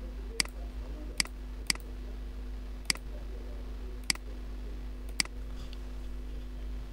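Computer mouse button clicking six times, single sharp clicks at uneven intervals, over a steady low electrical hum.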